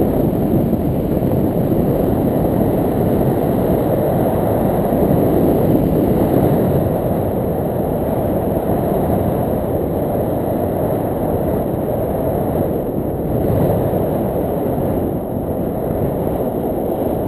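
Steady wind rumble on the microphone of a pole-mounted camera, caused by the airflow of a paraglider in flight.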